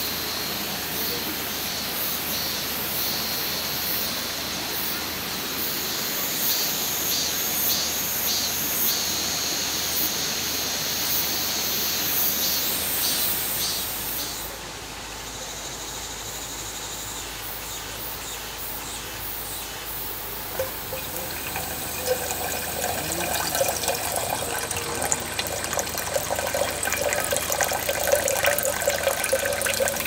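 Water running and splashing, a steady hiss that eases about halfway through and grows louder and more spattery again in the last third.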